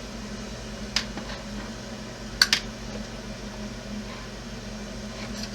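Hard plastic RC plow parts being handled and fitted: one sharp click about a second in and a quick double click a little later, over a steady low background hum.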